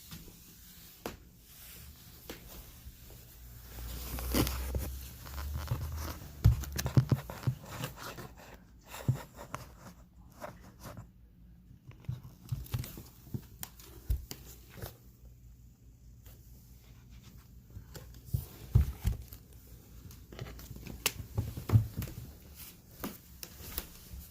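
A house cat chewing and tearing at a small bird, with irregular sharp crunches and clicks.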